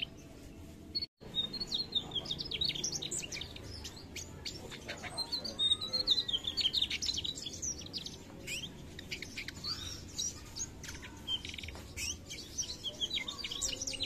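Mugimaki flycatcher singing: rapid, high twittering and chirping phrases with short pauses between them. The sound briefly cuts out about a second in.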